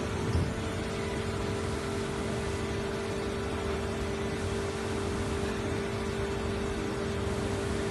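Injection moulding machine for PP bottle preforms running with a steady mechanical hum over a constant rushing noise, with one short low bump about half a second in.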